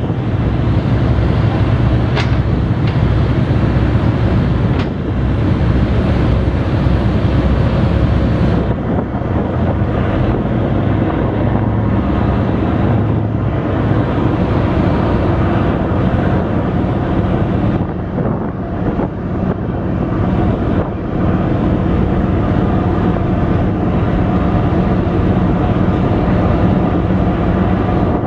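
Steady low rumble of a large offshore supply vessel's diesel engines and propellers as it gets under way, with wind on the microphone; the high hiss drops back about eight seconds in.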